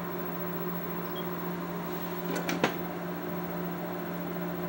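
Steady low electrical hum, one held tone with overtones above it. Two faint clicks come about two and a half seconds in.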